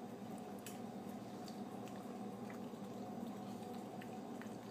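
Cat eating wet cat food off a plastic plate: soft, irregular wet smacking and clicking chews over a steady background hum.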